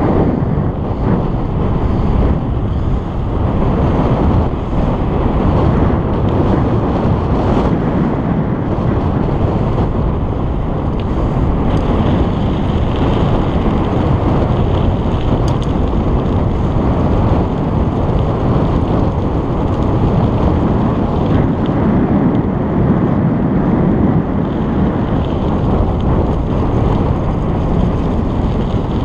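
Wind buffeting a GoPro's microphone on a moving bicycle: a steady, loud, deep rumble.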